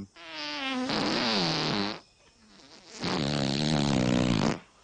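Two long farts, a comedy sound effect, each wavering in pitch; the second starts about a second after the first ends.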